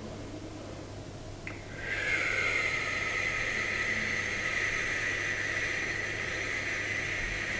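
A long exhaled 'xu' of Six Healing Sounds qigong, pronounced 'shu' and blown out through rounded lips. It is a steady hushing hiss that starts about two seconds in and is held.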